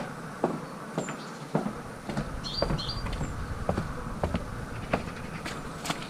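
Footsteps at a walking pace, a short knock about every half second, over a steady low hum, recorded through a GoPro Hero 5's built-in microphone on its wind-only audio setting. Two brief high chirps come about halfway through.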